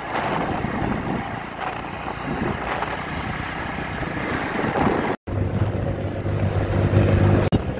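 Wind rushing over the microphone of a moving motorcycle, with the bike's engine running underneath. The sound drops out for an instant about five seconds in, and after that a steady low engine hum comes through more clearly.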